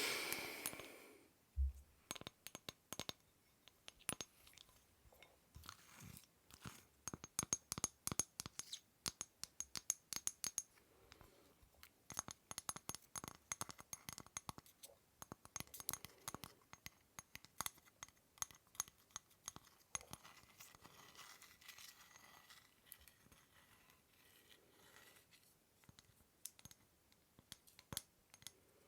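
Close, quick clicks, taps and light crinkly scratches on small objects, in dense irregular runs, with one soft thud near the start.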